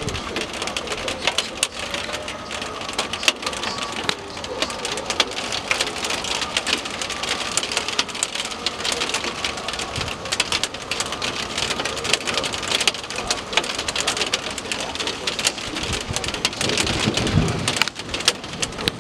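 Rain falling steadily in a rainstorm, with a dense patter of drops ticking on nearby surfaces.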